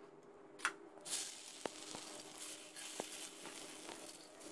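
Egg-dipped bread sandwich frying in oil on a hot iron tawa: a steady sizzle that starts about a second in. A few light utensil clicks sound over it.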